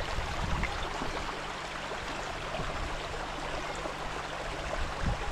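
Mountain stream rushing steadily, with a brief low thump near the end.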